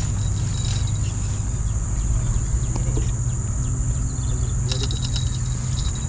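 Insects trilling steadily at a high pitch over a low steady rumble, with a few short chirps about five seconds in.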